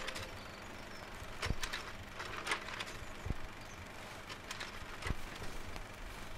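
Faint, irregular sharp clicks and small mechanical ticks, a few seconds apart, over a low steady hum.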